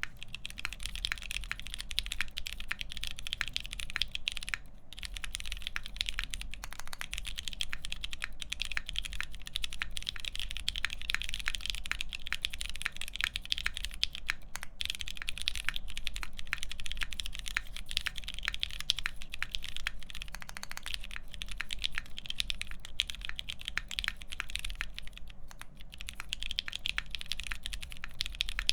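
Continuous fast typing on a Salvation mechanical keyboard with lubed Pewter switches, a half FR-4 plate and Hammerworks CRP PBT keycaps: a dense run of keystroke clacks with brief pauses a few times.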